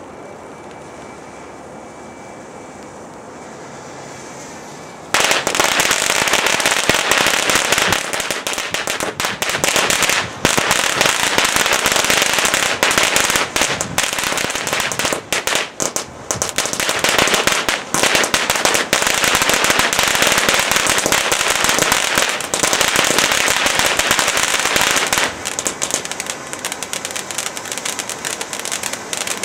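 Winda 'Dancing with Ghost' fountain firework burning: a steady hiss of spraying sparks, then about five seconds in a sudden switch to loud, dense crackling that keeps going and eases a little near the end.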